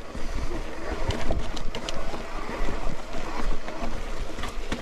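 Canyon Exceed CF SLX hardtail mountain bike rolling over a wet, rocky dirt track: a steady rush of tyre and wind noise on the microphone, with a few sharp clicks and rattles as it goes over stones.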